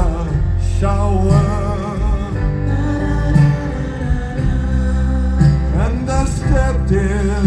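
Live band playing a slow ballad, with a male voice singing over the band.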